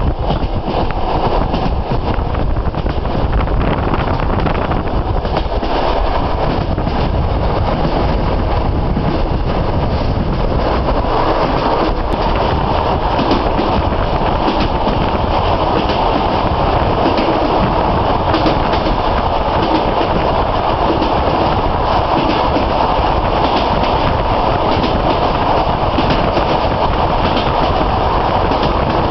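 Railway train running on the track: a steady rumble with the clatter of wheels over the rails, growing a little brighter about a third of the way in.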